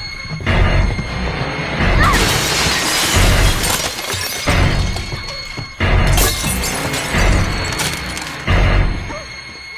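Horror film trailer score with heavy low booms every couple of seconds, overlaid twice by long bursts of loud crashing noise, one about two seconds in and one about six seconds in.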